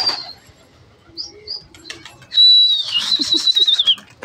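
A pigeon-flyer's loud, high whistle held for about a second and a half and falling off at the end, sounded to send pigeons up, with wings flapping and rustling as the birds are flushed. A shorter whistle trails off at the start.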